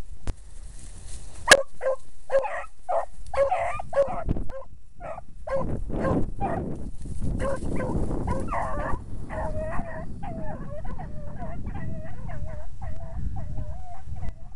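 Beagles baying while running a rabbit: a run of short chop barks, then from about ten seconds in a steady string of wavering bawls, about two a second. A sharp click about a second and a half in, over low rustling.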